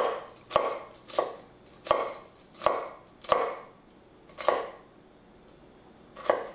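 Chef's knife making vertical slicing cuts through half an onion onto a wooden cutting board: about eight crisp strokes at roughly one every half second to second, with a pause of nearly two seconds before the last.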